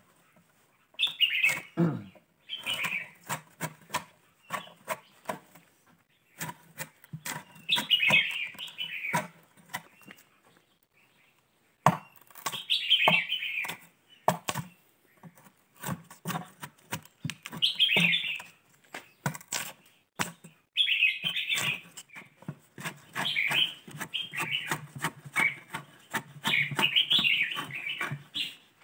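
A metal bar striking and prying the soft, fibrous pith inside a hollow fishtail-palm trunk: rapid sharp cracks and crunching in bursts, with brief pauses about ten seconds in and near twenty seconds.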